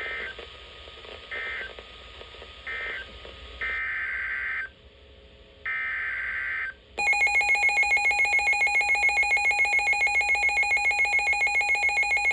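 NOAA Weather Radio Emergency Alert System signalling: three short screeching SAME data bursts (the end-of-message code), then two longer data bursts (the header of the next warning). About seven seconds in, a loud, rapidly pulsing alert tone starts and holds, announcing the new warning.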